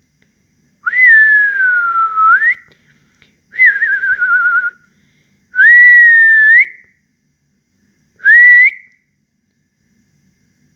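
A person whistling by mouth, four separate notes: a long note that slides down then back up, a shorter warbling note falling in pitch, a steady note that turns up at its end, and a short rising note near the end.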